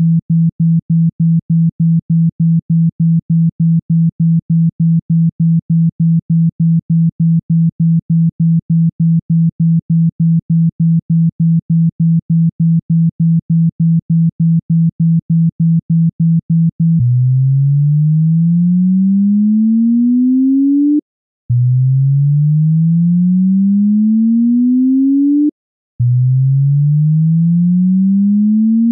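Synthesized low sine tone of a speaker water-eject track, pulsing on and off about three or four times a second. About two-thirds of the way through it changes to slow rising sweeps, each climbing for about four seconds with short breaks between. The shifting low tones are meant to vibrate a phone speaker's diaphragm and push water droplets out through the grille.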